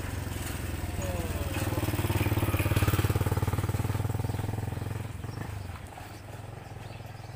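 A motorcycle engine running with a steady low hum that grows to its loudest about three seconds in and then fades away, like a motorcycle passing by.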